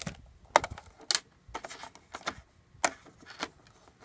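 Scattered sharp clicks and light taps, about six of them at uneven intervals, the loudest about half a second in and just after a second, as a plastic Wi-Fi antenna and its coiled cable are handled and set down on a hard countertop.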